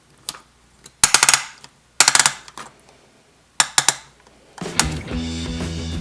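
Small plastic toy pieces clattering against a plastic playset in three quick bursts of rapid clicks. Guitar music comes in near the end.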